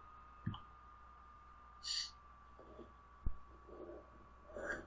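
A girl sniffling quietly between sneezes, with a short sniff about two seconds in and a quick intake of breath near the end as the next sneeze builds. A faint steady high tone runs underneath.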